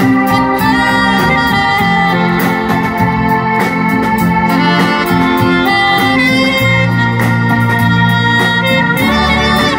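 Live jazz band playing: a saxophone carries the melody over keyboard chords and bass, with a steady cymbal-and-drum beat.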